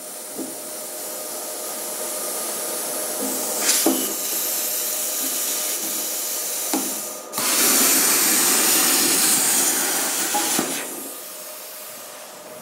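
Plasma cutter cutting through rusty sheet steel: a steady hiss of air and arc with a few light knocks. It breaks off for an instant about seven seconds in, comes back louder, then dies away about eleven seconds in.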